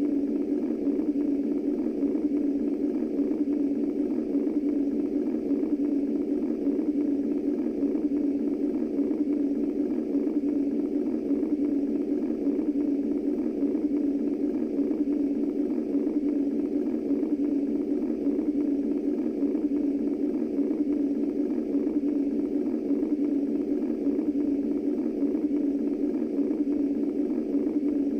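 Womb white noise: a steady, low-pitched noise held at an even level, with no beat or pulse in it.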